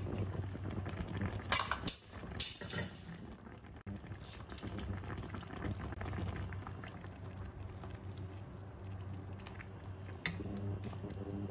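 Soy-sauce braising liquid simmering and bubbling around pork belly in a frying pan, with two loud hissing bursts near the start as the glass lid comes off, then light clicks of metal tongs turning the pork.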